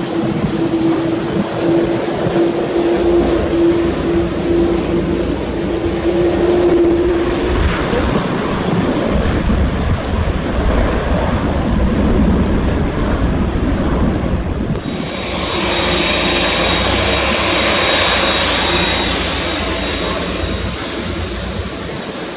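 Airbus A330-300 jet engines at takeoff power as the airliner rolls down the runway and lifts off: a steady tone that rises slightly over the first seven seconds, then a broad roar. About fifteen seconds in, the sound changes abruptly to a Boeing 787-9's engines close by as it taxis, brighter and with a thin high whine.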